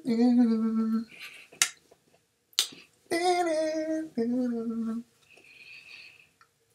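A man's voice singing a homemade intro jingle in held notes, each pair going from a higher note to a lower one, done twice. Two sharp finger snaps fall in the gap between the pairs.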